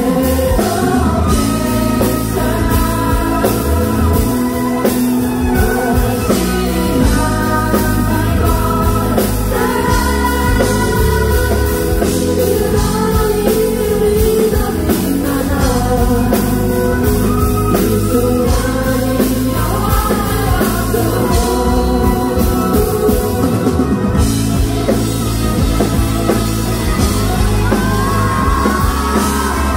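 A rock band playing a song live, with singing over drums and guitar.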